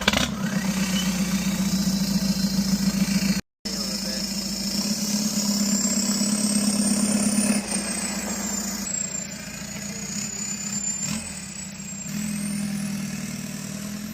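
TDI turbo-diesel car engine just started and running steadily, with a high whine that rises slowly in pitch; the sound cuts out briefly about three and a half seconds in.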